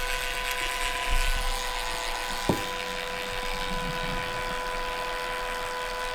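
A small electric motor runs steadily with a constant-pitch hum over a hiss, with one sharp click about two and a half seconds in.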